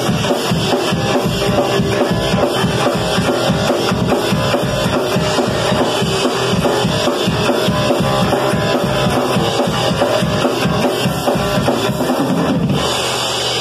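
Live rock band, a drum kit and electric guitar, playing loud and fast with no vocals. About a second before the end the drumming stops and a guitar chord is left ringing.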